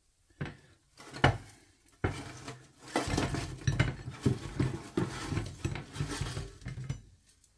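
A few knocks of the air fryer's non-stick basket against the worktop and plate, the loudest just over a second in. Then about four seconds of rattling and clattering as crisp breaded chicken strips slide out of the tipped basket and tumble onto a ceramic plate.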